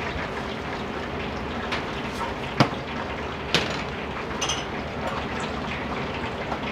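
Steady hiss of a working restaurant kitchen, broken by a few sharp clicks and one short high-pitched ringing ping near the middle.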